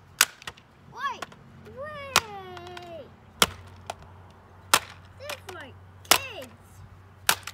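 Six heavy blows, about one every second and a bit, smashing the plastic body of a toy car apart, with a few lighter knocks between them.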